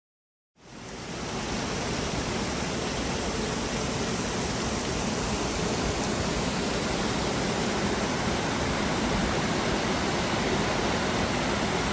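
Steady rush of a creek's cascades, an even roar of flowing water that cuts in abruptly about half a second in.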